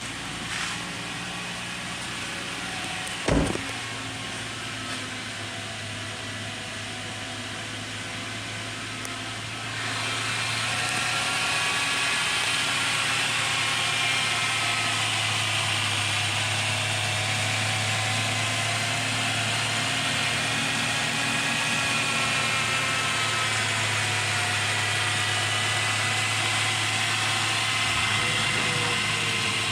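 Subaru Outback boxer engine idling steadily, with a single sharp thump about three seconds in. About ten seconds in the sound gets louder and brighter and then holds steady.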